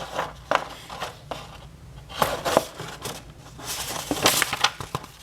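Paper pages of a model kit's instruction booklet crinkling and rustling as they are leafed through, in irregular bursts, the loudest about two seconds in and again about four seconds in.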